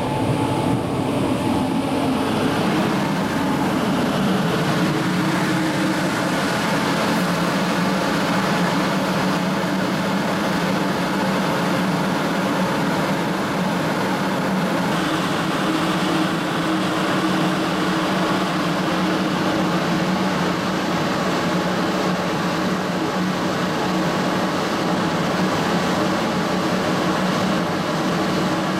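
Class 112 electric locomotive standing at a station platform, its cooling blowers and transformer running with a steady, even hum.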